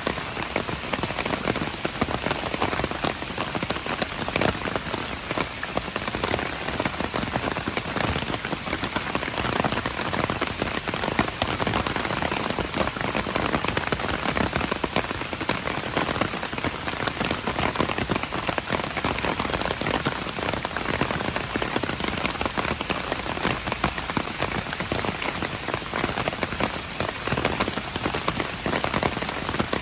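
Steady heavy rain falling on hard surfaces, a dense patter of many individual drops.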